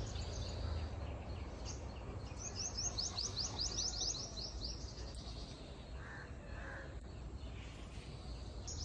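Small birds chirping: fast runs of short, high, falling notes, several a second, strongest from about one and a half to four seconds in, with a few softer calls later. A steady low background rumble runs underneath.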